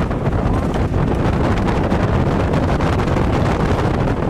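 Wind buffeting the microphone on a moving motorboat, over the steady running of the boat's engine and water.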